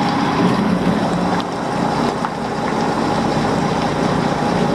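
Semi truck's Cummins ISX diesel engine running steadily at low speed as the truck moves off slowly with a loaded trailer.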